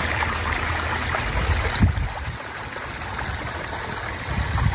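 Steady rush of running water with a low rumble underneath; it grows quieter about two seconds in.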